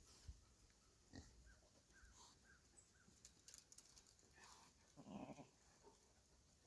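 Near silence, with a faint short low animal grunt about five seconds in and a few faint small chirps earlier.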